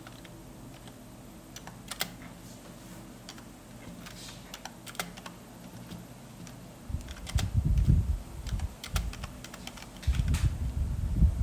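Coloured pencil shading on paper laid on a tabletop: scattered taps and scratches, then two stretches of dense, louder rubbing and knocking, from about seven seconds and from about ten seconds in.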